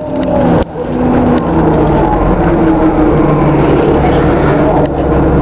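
City bus engine and drivetrain running, heard from inside the bus, with road noise; the engine drone's pitch glides and settles as the bus changes speed.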